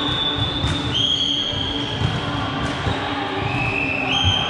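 Busy volleyball gym: balls thudding and bouncing against a background of voices in a large hall. Several high, steady whistle-like tones of about a second each sound at slightly different pitches, about a second in and again near the end.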